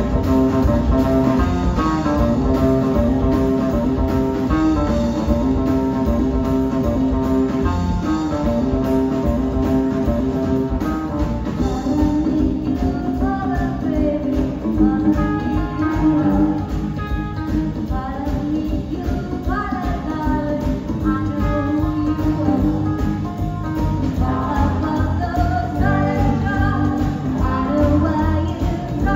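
Live rockabilly band playing, with electric guitar, slapped upright double bass and drums keeping a steady beat. A woman's singing voice comes in a little under halfway through.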